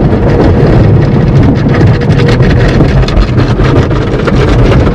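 An automatic car wash scrubbing the car, heard from inside the cabin: cloth strips and water beat and slosh over the windshield and body. The noise is loud and steady, a deep rumble full of quick slaps and splashes.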